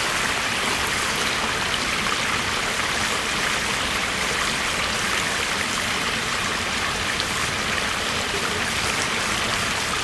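Shallow river water running and rippling over a gravel bed: a steady, even rushing.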